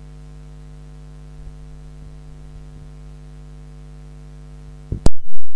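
Steady low electrical mains hum on the recording. About five seconds in it cuts off with a sudden loud click.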